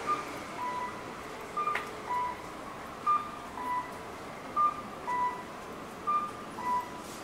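Electronic two-tone chime, a short higher note followed by a lower one, repeating about every one and a half seconds over steady street background noise.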